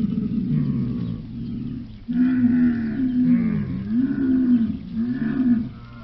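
Dromedary camels moaning: one low call fades out, then after a short gap about two seconds in, a louder call rises and falls in pitch several times before stopping shortly before the end.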